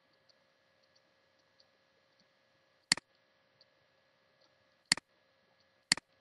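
Three sharp computer mouse button clicks, each a quick press-and-release. The first comes about three seconds in, and the next two come a second apart near the end.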